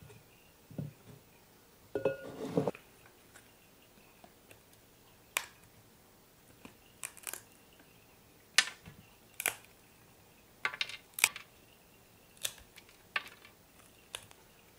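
Rustling about two seconds in as a crumbly mushroom grow-kit block is handled, then a string of sharp, irregular clicks as a small metal cutter snips pieces off the block, crumbs dropping onto an aluminium tray.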